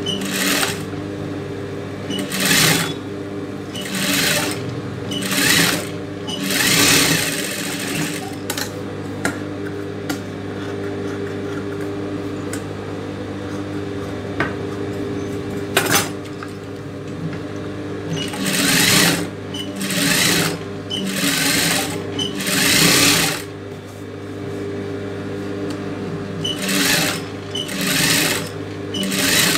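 Industrial sewing machine stitching fabric in short runs of about a second each, several in a row near the start and again in the second half, with the motor humming steadily in between.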